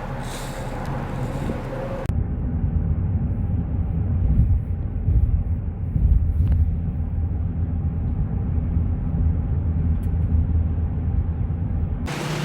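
Low, gusting rumble of strong squall wind mixed with road traffic. The sound changes abruptly about two seconds in and again near the end.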